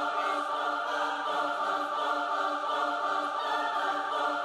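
A sustained choir-like chord, a steady drone of several held notes that does not change.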